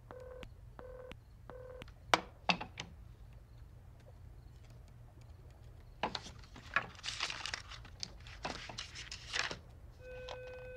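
Black rotary desk telephone: three short beeps of the line's disconnect tone come from the handset after the call ends, then a couple of clicks as the receiver is put down in its cradle. About six seconds in, a run of clicks and rattles as the phone is handled again, and a steady dial tone starts near the end.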